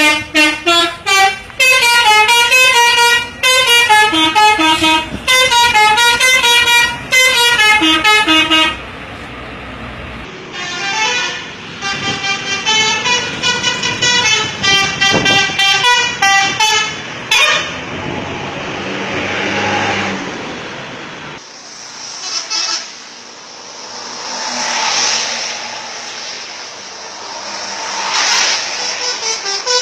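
A bus's 'telolet' multi-tone musical horn playing a rapid, repeating melody of stepped notes, loud for the first nine seconds, then another shorter tune. The horn then stops, and a rushing noise swells and fades twice.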